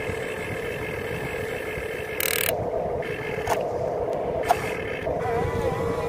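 Electric motors of a Huina RC excavator whining steadily as the arm and bucket move, with a short hiss about two seconds in and two sharp clicks about a second apart.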